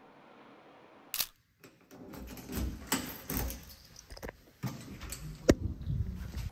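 Handling noise on a camera's microphone: rubbing, rustling and irregular knocks as the camera is moved about, with a sharp knock about five and a half seconds in. A single click comes a little after one second, followed by a brief drop-out.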